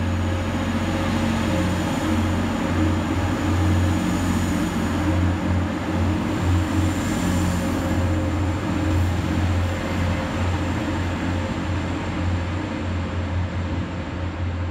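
TransPennine Express multiple-unit train moving out along the platform past the listener, a steady low rumble and drone that eases off over the last few seconds as it clears the station.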